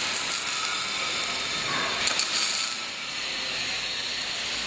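Arc welding by a robotic welder: a steady hiss with crackling, a cluster of sharper crackles about two seconds in.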